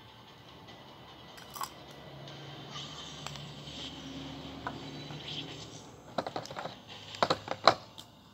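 A quick run of sharp clicks and taps from small hard items being handled on a shop counter, bunched about six to eight seconds in, with the loudest click near the end, over a faint shop murmur.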